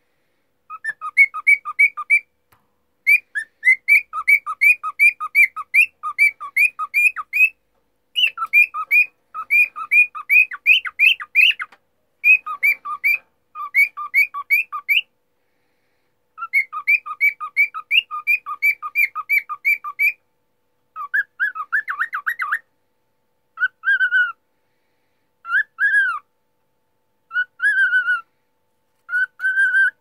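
Male cockatiel whistling its song: fast runs of clear notes, several a second, alternating between a higher and a lower pitch in phrases a few seconds long. About two-thirds through it changes to a brief chatter, then slower single whistles that rise and fall, about one a second.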